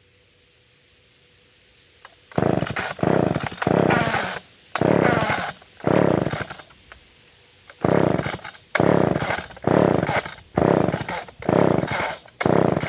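McCulloch chainsaw being pull-started over and over with the choke on, the starter rope zipping out and the engine turning over without catching. About ten quick pulls, roughly one a second, beginning about two seconds in.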